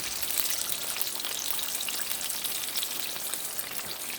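Chicken wings frying in a skillet of hot oil: a steady crackling sizzle made of many fine pops.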